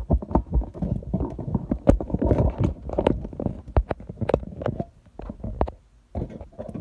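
Handling noise on a phone's microphone while the phone is moved about: rubbing and a rumble with many quick knocks and clicks, quietening briefly about five and six seconds in.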